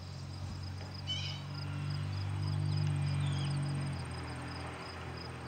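Insects chirping in a steady, rapid pulse, with a low droning hum that swells through the middle and fades about four seconds in. A short bird chirp comes about a second in.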